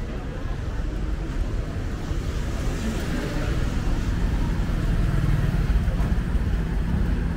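Street traffic: motor vehicles running close by, the engine noise growing louder about halfway through.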